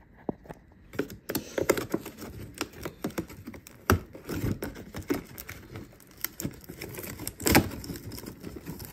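Fingers scratching, tapping and tearing at a stiff perforated cardboard door on a wine advent calendar that won't open easily: a run of dry clicks and crackles, with a louder knock or tear about four seconds in and another near the end.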